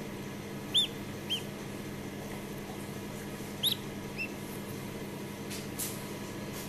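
Khaki Campbell duckling peeping from inside its partly opened shell while hatching: four short, high peeps in two pairs, the first two about a second in and the next two near the middle. A brief soft rustle follows near the end.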